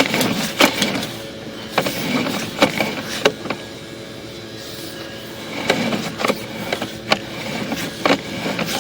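Sewer inspection camera's push cable being pulled back out of the line and onto its reel: irregular clicks and knocks over a low rumble, quieter for a couple of seconds in the middle.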